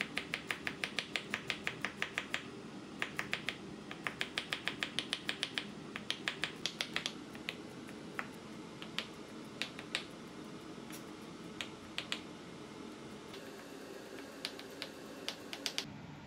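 Chef's knife chopping garlic cloves on a bamboo cutting board. Quick runs of sharp taps, about seven a second, fill the first seven seconds, then slower scattered chops follow, with a short quick run near the end.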